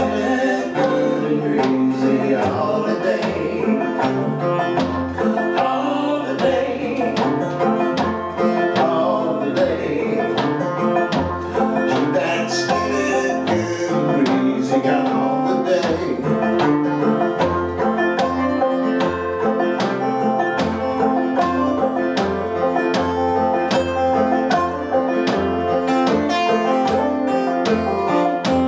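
Live acoustic duo playing a country-blues tune on banjo and acoustic guitar, with a steady picked rhythm and a few bent notes.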